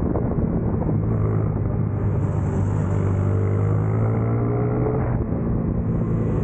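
Racing motorcycle engine running under load, heard close from the bike's tail, with a steady low note that climbs in pitch from about two seconds in as the revs rise, then changes abruptly just after five seconds.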